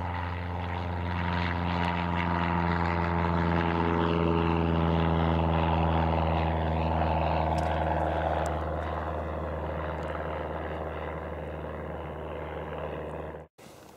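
Aircraft engine drone: a steady hum with many overtones that swells through the middle and then fades. It cuts off abruptly shortly before the end.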